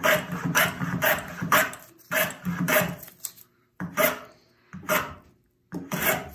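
Hand plane taking quick, short strokes along a corner of a square wooden stick, shaving it down toward an octagon. The strokes come several a second in runs, with brief pauses between the runs.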